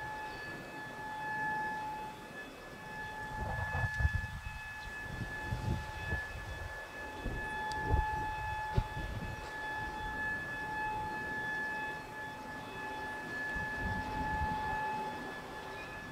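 A steady, siren-like tone with overtones, held until near the end and then stopping, over low rumble and a few dull thumps.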